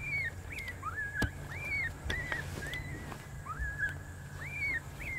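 FoxPro electronic predator caller playing coyote pup distress: a steady series of short, high, arched whimpering whines, about one and a half a second. A sharp click sounds about a second in.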